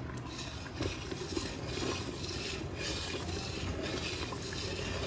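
Thick carrot and country-sugar malt mixture bubbling and spluttering under a glass lid in an iron kadai, irregular pops over a steady low rumble. The spluttering means the mixture is still wet and reducing, not yet ready for constant stirring.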